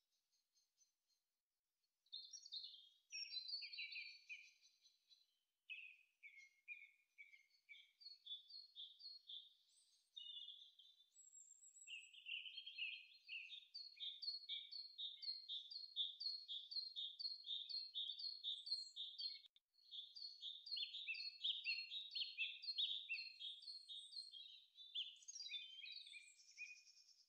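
Birdsong: small birds chirping in quick runs of short, high repeated notes, starting about two seconds in and breaking off briefly about two thirds of the way through.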